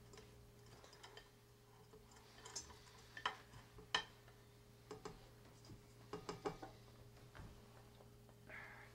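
A spatula scraping and tapping against a ceramic bowl and a steel mixer bowl, giving scattered light clicks and knocks. The loudest come about three and four seconds in, with a quick run of them near six seconds, over a faint steady hum.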